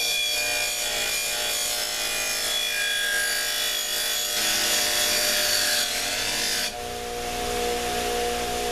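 Steel knife blade, made from a chainsaw bar, pressed against a spinning buffing wheel: a steady rubbing hiss as the edge is polished, which stops about 6.7 seconds in when the blade is lifted off, leaving a steady hum.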